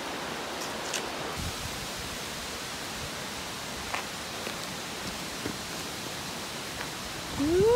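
Steady rushing of the Kennebec River's flowing water, with faint footsteps on the dirt trail. Near the end a woman's voice gives a short rising hum.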